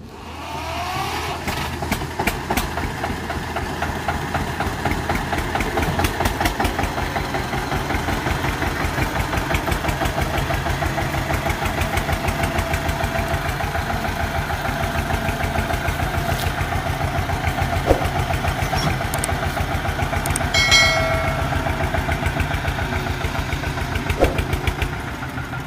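1990 Eicher Goodearth tractor's air-cooled diesel engine running with a rapid, even knocking beat. It comes up to speed in the first second or so, then holds steady.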